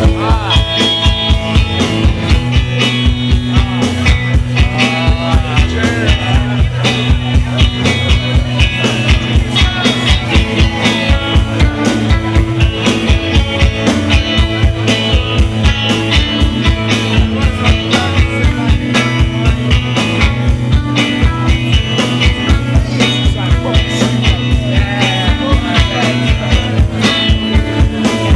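Rock band playing live: electric guitars over a drum kit, with a steady, driving beat.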